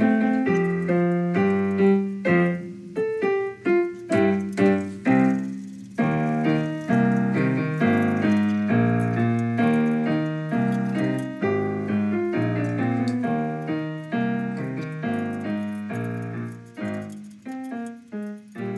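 Background piano music: a steady run of piano notes that fades out near the end.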